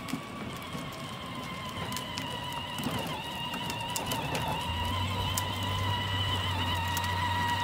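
Electric drive motor and gearbox of a ride-on Power Wheels toy truck whining steadily, growing louder as the truck drives closer.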